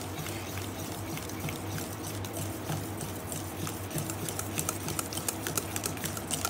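Chocolate brownie batter being mixed in a bowl, the utensil clicking lightly against the bowl, the clicks coming thicker in the last couple of seconds, over a steady low hum.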